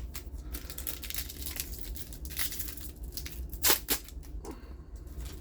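Foil trading-card booster pack wrapper crinkling and being torn open, with one loud sharp crackle of the wrapper about three and a half seconds in.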